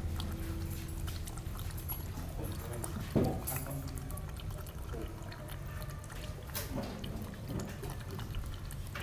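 Dog lapping and slurping liquid from a plastic bowl: irregular wet clicks, with a louder knock about three seconds in.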